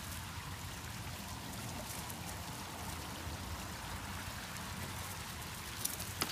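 Small pond fountain jets spraying steadily, a continuous patter of water falling back onto the pond surface. A few sharp clicks come shortly before the end.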